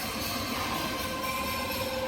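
Paper converting machinery running steadily: a constant mechanical hiss with a few steady humming tones underneath.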